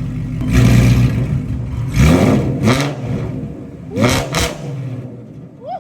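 Shelby GT350's 5.2-litre flat-plane-crank V8 through Corsa Extreme axle-back mufflers with the exhaust valves open, blipped hard about four times from idle, each rev rising and falling quickly before it drops back to a loud idle.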